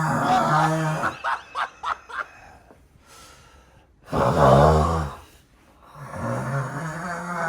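A man snoring heavily in his sleep: long, rough snores about every three seconds, the loudest one about halfway through, with a few faint clicks between the first two.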